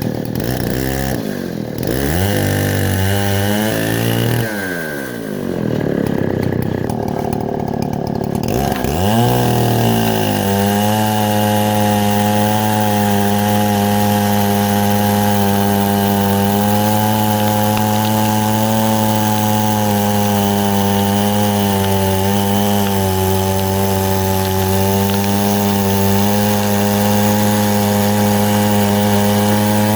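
Chinese clone of a Stihl 070 chainsaw revving up and down several times, then held at a steady high speed from about ten seconds in as it cuts through mesquite in an Alaskan chainsaw mill. The owner says the saw is running really rich.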